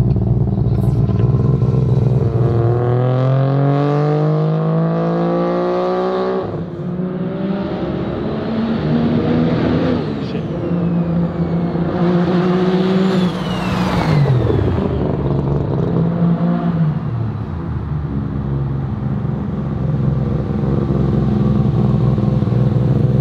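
Heavily street-ported, turbocharged Mazda RX-7 rotary engine, untuned, pulling hard: its note climbs steadily in pitch for about four seconds, cuts off sharply, then runs through several shorter rev-ups and drop-offs.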